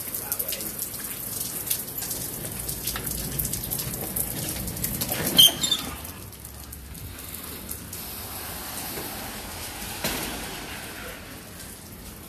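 Steady rain falling, a dense hiss with many fine drop ticks. A little past halfway there is one sharp clack, and after it the rain is fainter and muffled.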